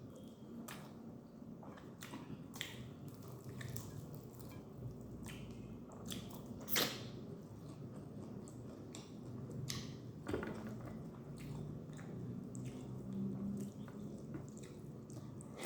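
Close-up eating sounds: wet chewing and mouth clicks and smacks of someone eating instant noodles with egg, with one sharper smack about seven seconds in.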